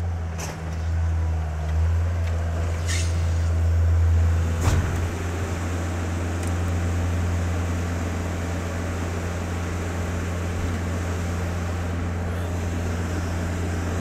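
Case skid steer's diesel engine running, growing louder as the machine drives up close, with a sharp knock about five seconds in, then running steadily.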